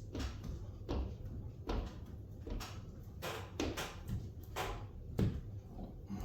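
Squeegee swiping over wet window film on glass, pushing the water down: a run of short swishing strokes, more than one a second.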